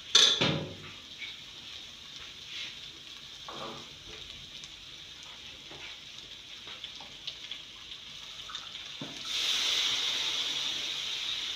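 Chicken and vegetables sizzling in a pot while a metal spoon stirs and knocks against it, with a short loud sound right at the start. Stock is poured in, and about nine seconds in the hissing grows louder and steadier.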